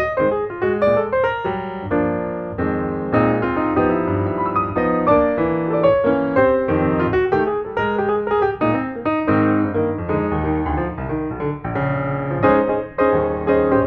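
Piano music playing continuously, a flowing run of notes with chords under it.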